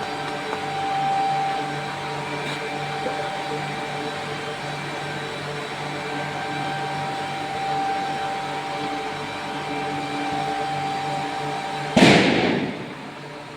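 Industrial machinery runs with a steady, even hum and a constant whine. About twelve seconds in there is a sudden loud burst of noise that dies away over a second, and the running sound is quieter after it.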